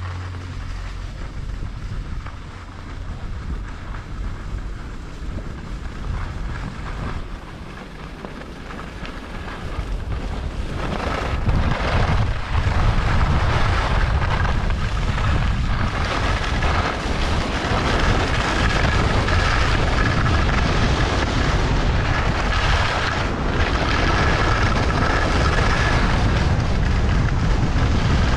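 Wind buffeting a body-worn camera's microphone while skiing downhill, with the skis hissing and scraping over groomed snow. It grows much louder about ten seconds in and stays loud after that.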